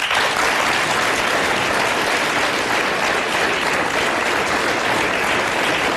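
Studio audience applauding, breaking out suddenly and holding steady.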